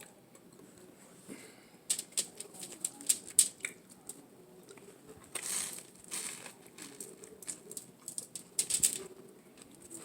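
Close-miked chewing of a bacon avocado tuna melt: crisp crunching and crackling clicks, densest about two to four seconds in, with softer bursts later.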